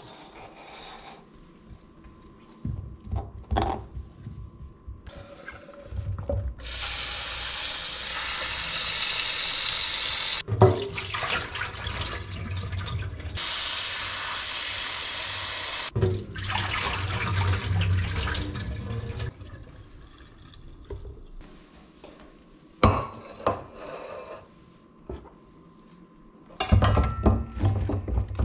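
Kitchen tap running into a stainless steel bowl of cauliflower florets as they are rinsed, the water splashing over them in two long stretches with a short break between. Near the end, a few sharp knocks and clinks of the bowl as the florets are handled.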